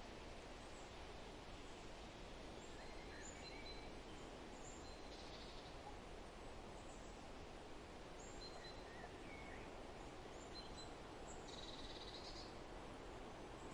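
Faint forest ambience: a steady hiss of background noise with scattered short, high bird chirps and calls. A longer buzzy call comes about five seconds in, and another near the end.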